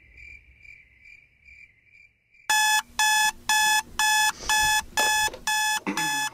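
Digital alarm clock beeping: loud, evenly repeated electronic beeps, about two a second, which start about two and a half seconds in as the clock reaches its alarm time. Before them, only faint high pulses.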